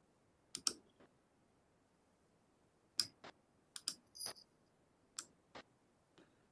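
Faint, scattered clicks of a computer mouse and keyboard, about a dozen in small clusters, with one slightly longer click about four seconds in.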